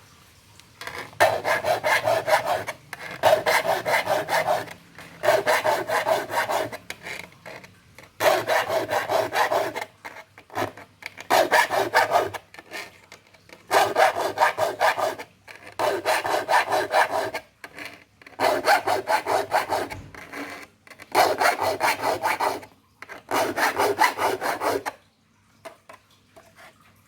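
A hand file rasping across the teeth of a wood handsaw to sharpen them: about ten runs of quick strokes, each lasting a second or two, with short pauses between, stopping near the end.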